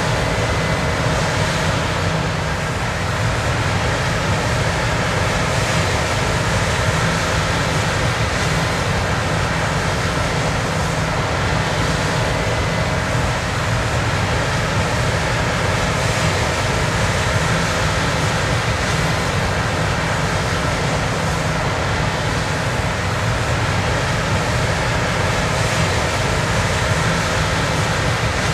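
John Deere X9 combine harvesters running steadily while harvesting: an even, unbroken machinery noise from the engines and threshing gear, with faint steady tones over a heavy low rumble.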